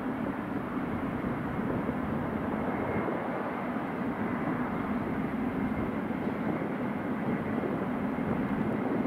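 Airbus A321 airliner's jet engines running with steady jet noise and a faint high whine.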